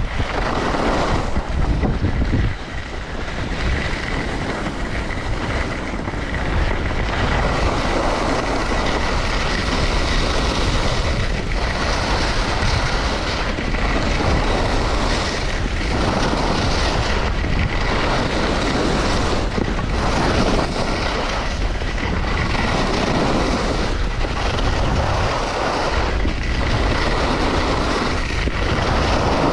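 Blizzard skis carving on hard-packed groomed snow, their edges scraping through each turn, under wind rushing over the camera microphone. The sound swells and eases with every turn, about every one and a half to two seconds.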